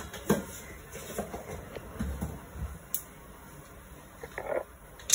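Mustard seeds frying in hot ghee in a kadai: a low sizzle with a few sharp pops as the seeds start to splutter for the tempering.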